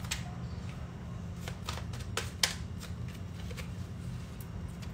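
A deck of Mystic Mondays tarot cards being shuffled and handled, a scatter of irregular crisp card flicks and snaps, the sharpest about halfway through.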